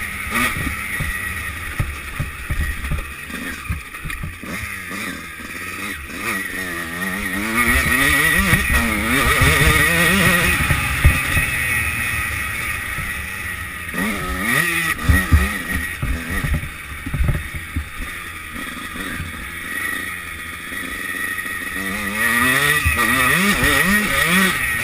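Motocross bike engine under hard riding, its pitch rising and falling again and again as the throttle opens and closes, with low thumps from the bumpy track.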